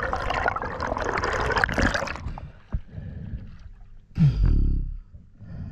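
Water rushing and bubbling past an underwater camera as a spearfisher swims up from a dive, cutting off suddenly about two seconds in as the camera nears the surface. After quieter lapping, a loud low blow of breath about four seconds in as the diver surfaces.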